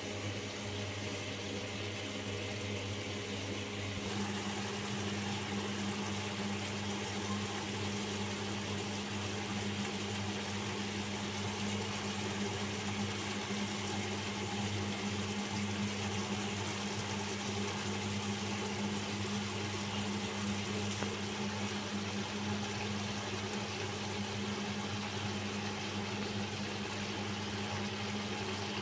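Steady motor-like hum with a constant hiss under it, with a slight change in the background about four seconds in.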